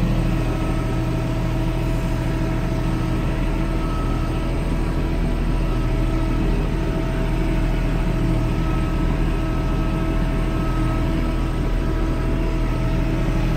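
Kubota L3560 tractor's diesel engine running steadily as the tractor drives along, heard from inside the cab.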